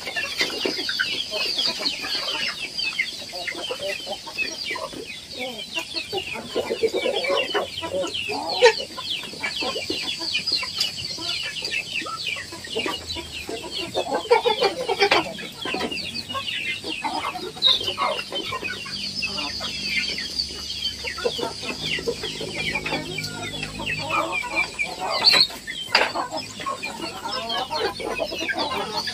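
A flock of Indonesian village chickens (ayam kampung) clucking continuously as they crowd around feed, with short calls overlapping throughout.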